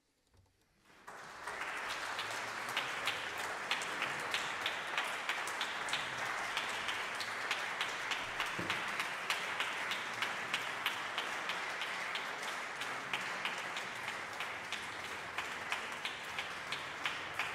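Audience applause that swells in about a second in and then keeps up steadily as a dense patter of many hand claps.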